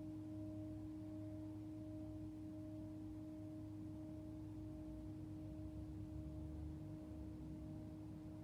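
Tibetan singing bowl ringing in a long sustained tone: a steady low hum with a higher overtone that wavers in a slow pulse.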